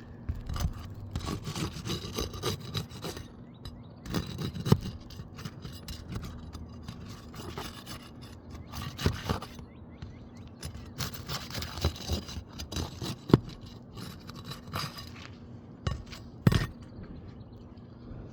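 Rasping scrapes on asphalt roof shingles as a damaged shingle is worked on, coming in spells of a second or two, with a few sharp knocks, the loudest about two-thirds of the way through.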